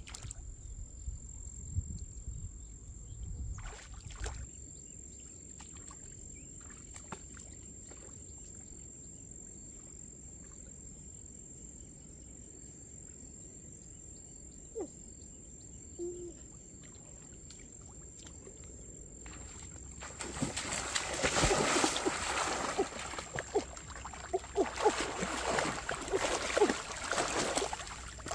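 Hands thrashing and splashing in shallow muddy floodwater, grabbing at fish. Loud, choppy splashing starts about two-thirds of the way in, after a quiet stretch of outdoor ambience.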